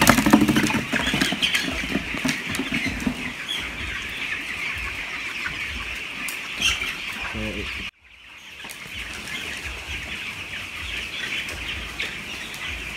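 A large flock of young broiler chickens calling together, a steady din of many overlapping calls, with wings fluttering in the first few seconds. The sound breaks off briefly about eight seconds in.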